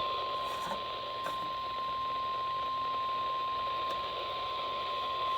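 NOAA Weather Radio warning alarm tone, a single steady 1050 Hz tone held over radio static. It signals that a warning, here a severe thunderstorm warning, is about to be broadcast.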